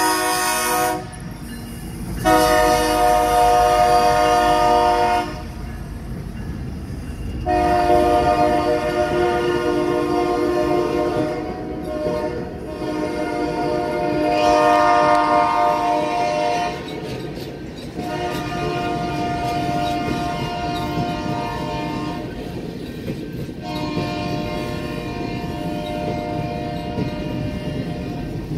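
Union Pacific locomotive air horn sounding a multi-note chord in a series of long blasts: the tail of one right at the start, one of about three seconds, a long one of about nine seconds, then two more of about four seconds, the last fainter. Passenger cars rumble and clack along the rails underneath.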